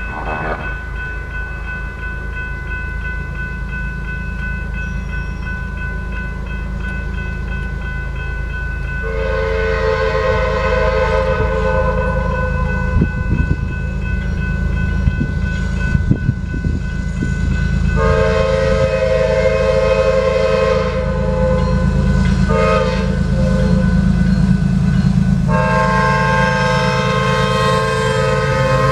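Grade-crossing bell ringing while the approaching KCS GE ES44AC diesel locomotive sounds its kazoo-sounding horn in the grade-crossing pattern: long, long, short, long. The last blast is still sounding as the locomotive reaches the crossing. The rumble of the train grows steadily louder throughout.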